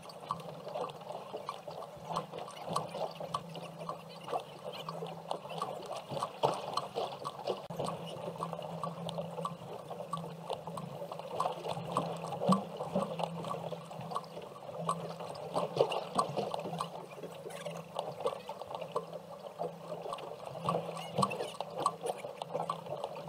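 Irregular splashing and sloshing of water around the boat, with a low steady hum underneath.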